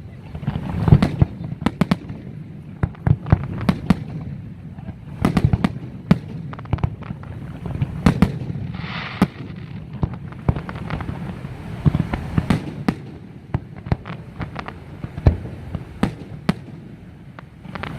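Fireworks display: a rapid, irregular series of sharp bangs from bursting fireworks over a low rumble, with a brief hissing burst about nine seconds in.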